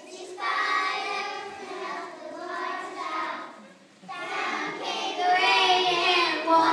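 Young children singing a song together, in two phrases with a short break about four seconds in.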